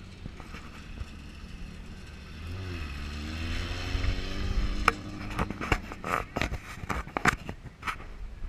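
Off-road race vehicle's engine revving up and accelerating, its pitch rising about two and a half seconds in. It is followed by a run of sharp clicks and knocks.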